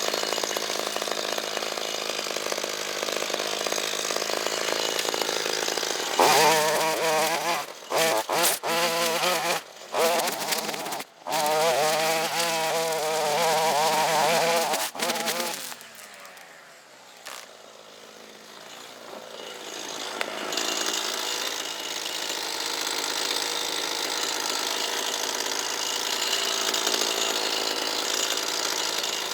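Small two-stroke engine of a handheld power tool revving and labouring under load for about ten seconds, with several brief drops in sound, then winding down. A steady hiss runs before and after the engine.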